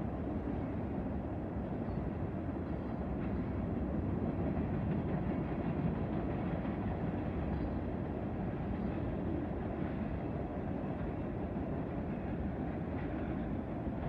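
Union Pacific manifest freight train rolling past, a steady low rumble of freight cars on the rails.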